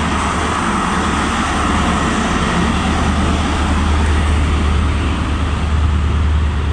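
Class 43 HST power car passing close and drawing away, its MTU V16 diesel engine running with a steady low drone over the rumble of wheels on rail.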